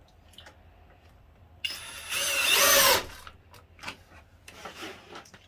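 Cordless drill running in one short burst about a second and a half in, lasting just over a second, its motor whine wavering in pitch as it works a screw into wood. A few faint clicks and taps follow.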